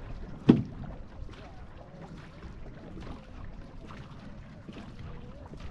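Paddling a two-person racing canoe: water washing and splashing along the hull with the rhythm of paddle strokes, and one sharp knock about half a second in.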